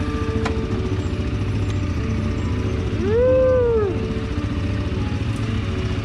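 CFMoto CForce 400 ATV's 398cc single-cylinder four-stroke engine running steadily at low speed with a low, fast pulse. About halfway through, a short call rises and then falls in pitch over about a second, louder than the engine.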